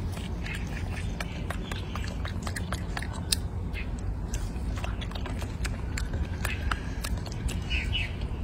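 Golden snub-nosed monkey biting and chewing a piece of raw vegetable: a run of irregular crisp clicks and crunches, one sharper bite about three seconds in.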